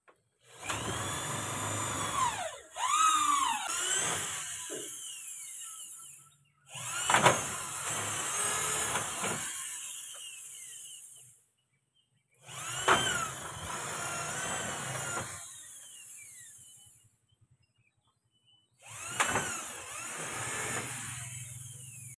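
Electric power drill run against a spandrel ceiling in four bursts of about five seconds each, with short pauses between. Each burst starts suddenly and its pitch slides down as the drill works.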